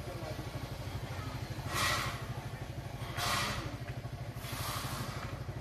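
An engine idling with a steady low, even throb, and three brief hissing swells of noise about two, three and five seconds in.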